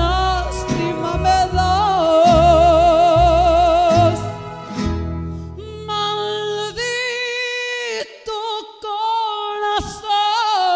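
A woman sings a ranchera, holding long notes with a wide vibrato over a band with a deep bass line. About seven seconds in the bass drops away and she holds a higher note over a lighter accompaniment.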